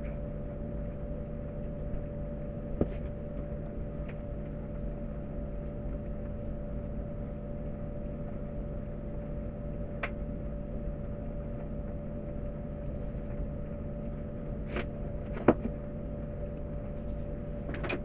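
A steady low hum with a faint constant higher tone, broken by a few sharp taps and knocks as wooden parts and tools are handled on a workbench; the loudest knock comes about three seconds before the end.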